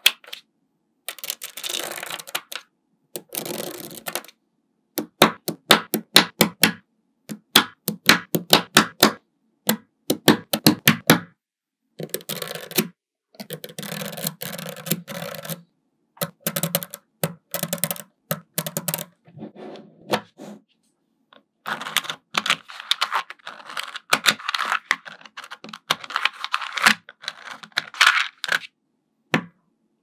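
Small magnetic balls clicking and snapping together as strips of them are laid down and stacked, in quick runs of sharp clicks broken by short pauses.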